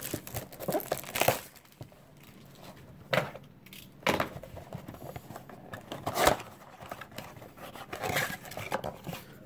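Plastic shrink wrap crinkling and tearing as it is pulled off a cardboard box of baseball cards, in irregular bursts with a sharp snap about six seconds in. Near the end the box's cardboard top flap is pried open.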